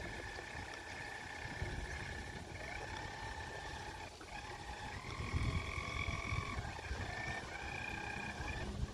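Radio-controlled boat's motor whining steadily, its pitch jumping up and down in steps as the throttle changes, with a brief drop about four seconds in and again near the end.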